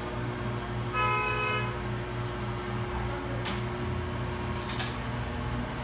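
Steady electrical machine hum, with a short horn toot about a second in and two sharp clicks later on.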